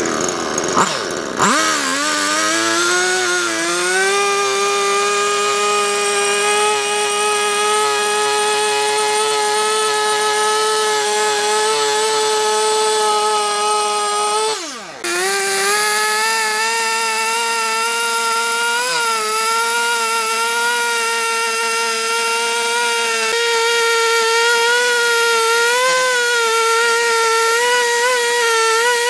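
Husqvarna two-stroke chainsaw running at high throttle while cutting into a log. Its pitch climbs over the first few seconds and then holds steady, drops sharply for a moment about halfway through, and climbs back, wavering a little under load.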